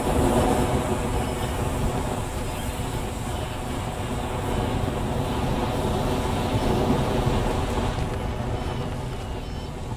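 DJI Phantom 1 LiPo flight battery in thermal runaway after being punctured by a screw, venting a jet of flame with a loud, steady rushing noise that swells at the start and slowly dies down toward the end.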